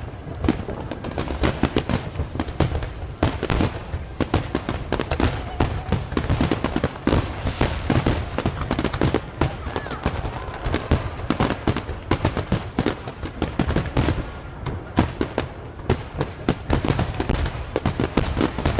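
Fireworks display with many shells bursting in quick succession: a dense, continuous run of bangs and crackles, several a second, with no let-up.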